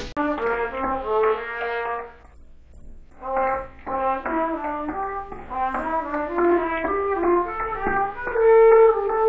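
Trumpet playing a melody of short, separate notes, heard as a track isolated from a mixed recording by audio source separation. The playing stops for about a second a little over two seconds in, then resumes.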